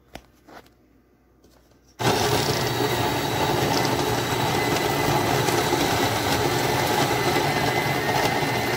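Two short clicks, then about two seconds in the Capresso Infinity conical burr grinder's motor starts and runs steadily, grinding coffee beans with a low tone roar.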